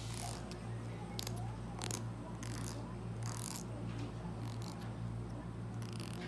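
A fingernail strummed along the teeth of a small plastic comb, in several short, high rasps about a second apart, over a steady low hum.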